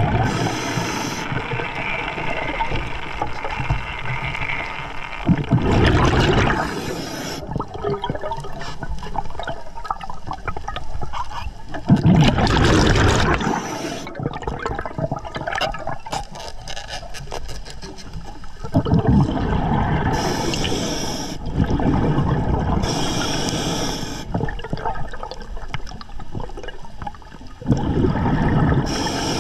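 Scuba diver breathing through an Atomic regulator underwater: gurgling rushes of exhaled bubbles alternating with short hissing inhales, repeating every few seconds.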